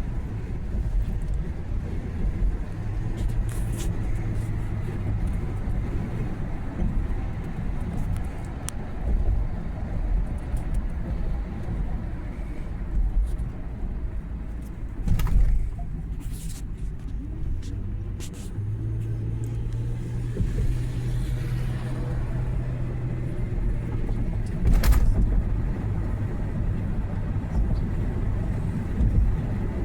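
Car driving, heard from inside the cabin: a steady low road and engine rumble with a humming drone, broken by a few short knocks from bumps in the road.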